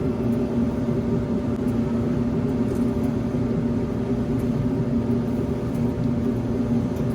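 Samsung front-load dryer running: a steady motor and drum hum with a few held tones. It is a test run with a newly replaced heating element, which is heating.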